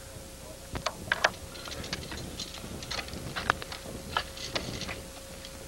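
Ice axe picks striking and biting into hard ice: a run of sharp, irregular taps and knocks, a few close together about a second in and again near the middle.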